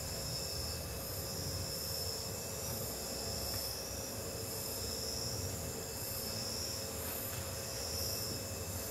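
Cricket-like chirping: a high pulsing trill repeating a little more than once a second, over a steady low hum and faint held tones.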